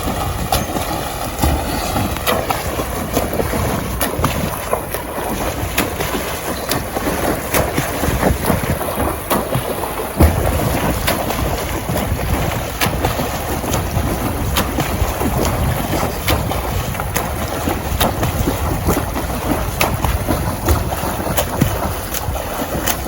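Continuous water churning and splashing in a swimming pool during a fast freestyle swim, full of small splashes, with one louder knock about ten seconds in.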